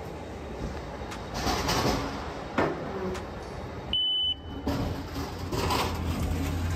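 Steady loading-dock background hum with rustling handling noise from the phone. About four seconds in, a short high beep sounds from the loading-dock control panel.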